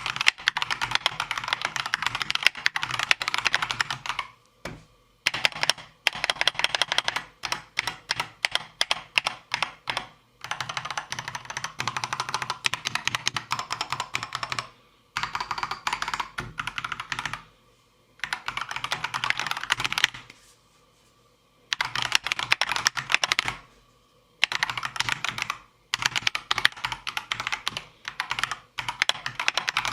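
Akko 3098B mechanical keyboard typed on fast, stock out of the box: a plastic case with silicone pads and a foam layer inside, and prelubed stabilizers. The typing comes in bursts of a few seconds with short pauses between them.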